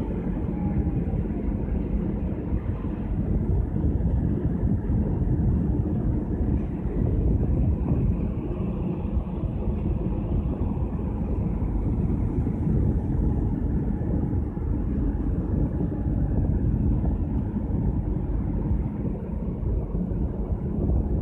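Steady low rumble of wind buffeting the microphone on the open top deck of a cruise ship under way, under a faint steady hum from the Carnival Pride's machinery.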